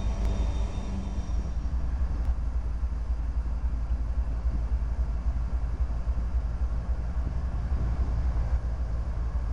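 Norfolk Southern freight train led by GE ES44AC locomotives, running past with a steady, heavy low rumble. A pitched hum fades out over the first second or two.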